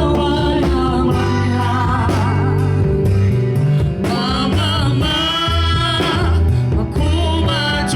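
Live band music with a lead singer holding long notes with vibrato over bass and guitar, in a gospel style.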